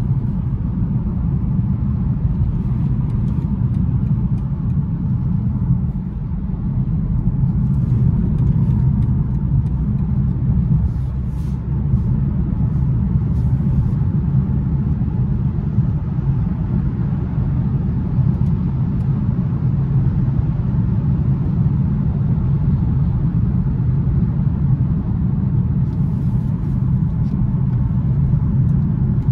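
Steady low rumble of tyre, road and drivetrain noise heard inside the cabin of a 2021 BMW 530i xDrive cruising at highway speed.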